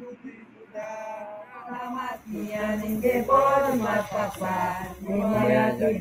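Voices singing a chant-like song in long held notes, starting about a second in and growing louder.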